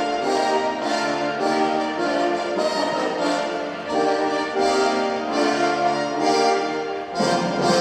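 Orchestral brass music playing loud, sustained chords that change in steps, phrase by phrase.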